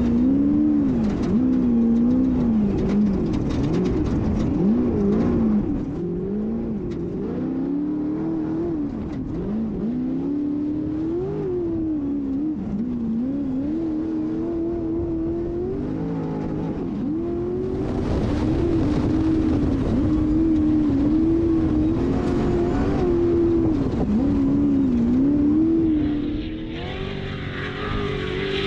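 Off-road race vehicle's engine revving up and down over and over, its pitch rising and falling every second or two as the throttle is opened and lifted. A rush of hiss joins the engine about two-thirds of the way through.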